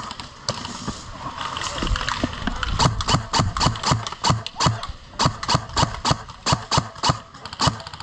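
Running footsteps, even footfalls at about three a second. For about two seconds near the start they give way to a rushing noise.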